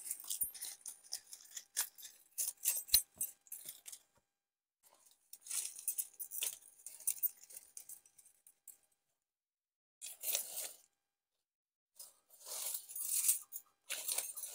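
Dry leaf litter and twigs crackling and rustling as hands work at the forest floor. A dense run of crackles and sharp clicks over the first few seconds, then short bursts of rustling separated by silences.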